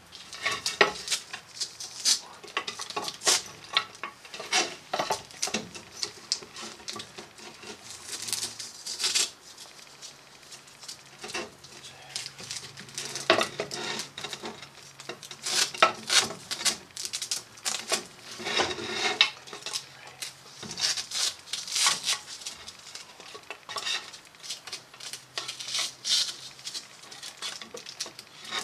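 Tape pulled off a roll in short rasping strips and wrapped round a brass tube, with irregular clicks, taps and clinks as the taped part is handled against a wooden board and the metal of the lathe.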